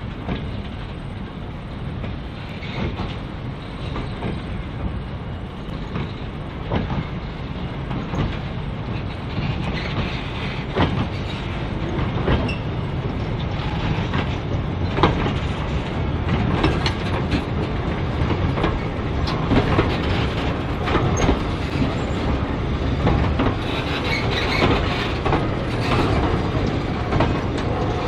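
Heritage mixed train rolling along jointed track, its wheels clicking over the rail joints at an uneven rhythm over a steady low rumble, getting gradually louder.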